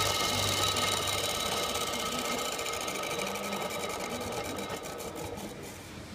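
Nissan Diesel RG8 V8 diesel engine running with a fast, even knocking from its worn-out coolant water pump. The sound grows gradually fainter toward the end.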